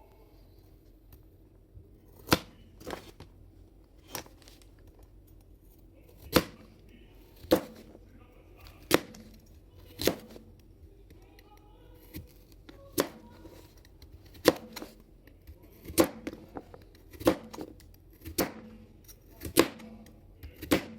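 A blade chopping against wood: sharp separate knocks, about one a second, each with a short ringing tail.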